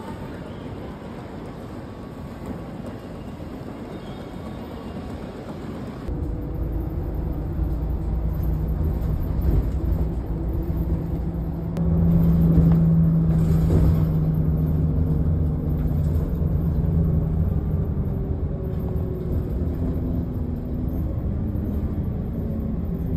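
Ambience of a busy station concourse for the first few seconds. About six seconds in it gives way to the low rumble and steady hum of a city bus's engine and road noise, heard from inside the moving bus, loudest about halfway through.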